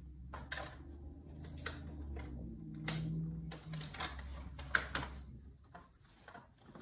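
Irregular sharp clicks and light plastic rattles from a cat batting a plastic food container around, over a steady low hum.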